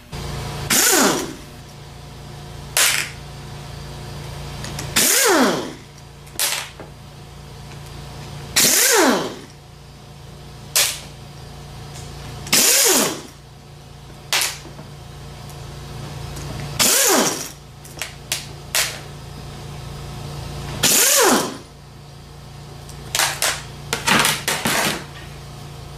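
Impact wrench turning a T40 Torx bit through a stack of adapters and an extension, breaking loose the six set screws that hold a starter's nose cone. There are six short bursts about four seconds apart, each falling in pitch as the tool spins down, with light metal clicks between them.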